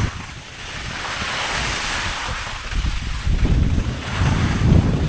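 Skis hissing through wet, slushy snow, the hiss swelling in the middle, while strong gusty wind buffets the microphone with a low rumble that grows stronger in the second half.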